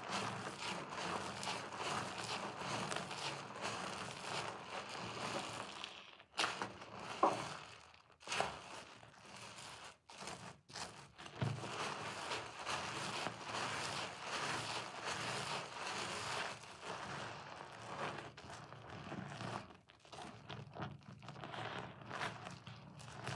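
Thick soap lather squishing and crackling as hands squeeze a soaked white soap bar and sponge. The sound thins out for a few seconds in the middle, with a few sharp pops and one short squeak, then the steady squishing resumes.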